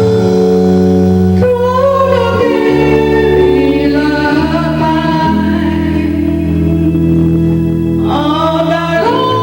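A sung national anthem playing as recorded music, with voices holding long notes over sustained chords.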